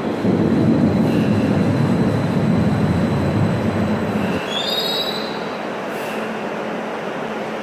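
Stuttgart Stadtbahn light-rail train running on the track: a loud low rumble that drops off suddenly about four and a half seconds in. A brief high wheel squeal follows just after it.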